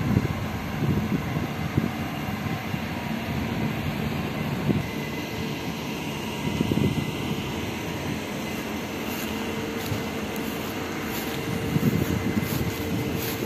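Steady low outdoor rumble with uneven surges, joined by a faint steady hum about two-thirds of the way through.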